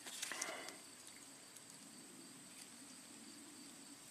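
Near silence: faint steady room tone. There are brief soft handling sounds in the first second, from hands working the wiring harness.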